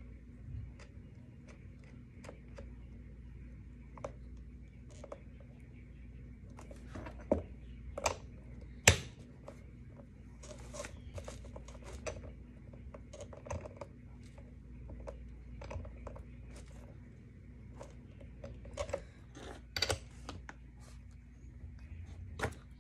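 Scattered clicks, knocks and scrapes of a hand-turned skate wheel tool working on a roller skate's wheel, bearings and axle as the wheels are changed; a few sharper knocks stand out, the loudest about nine seconds in.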